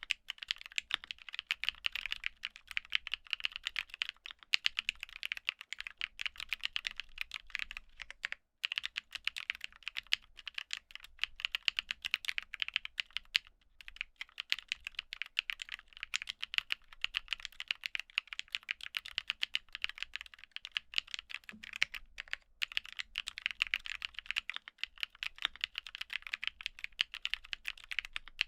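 Continuous fast typing on a MonsGeek M1 mechanical keyboard fitted with Durock Black Lotus linear switches: a dense run of keystroke clacks, with brief pauses twice.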